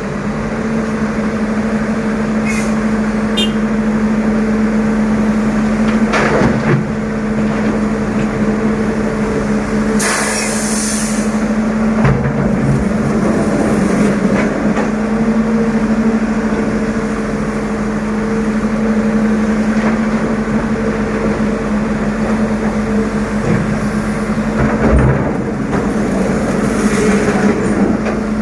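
Excavator diesel engine running steadily with a constant hum, with a short hiss about ten seconds in and a few knocks.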